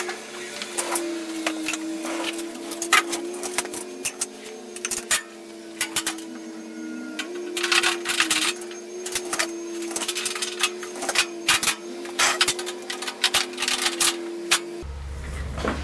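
Ratchet straps being cranked tight to hold down a plastic water tank: rapid, irregular clicking and rattling.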